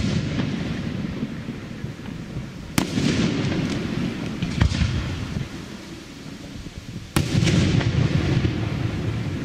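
Aerial firework shells bursting overhead: three sharp bangs a couple of seconds apart, the middle one weaker. Each bang is followed by a rumbling echo that fades over the next couple of seconds.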